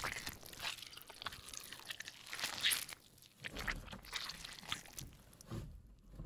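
Irregular rustling, crackling and scraping as a person rummages under a futon, with a short lull about halfway through.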